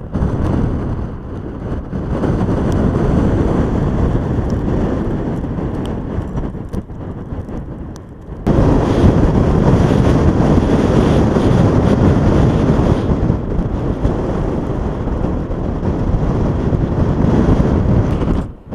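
Heavy snow-clearing vehicle's engine rumbling under wind noise on the microphone. It breaks off abruptly about eight and a half seconds in and resumes louder.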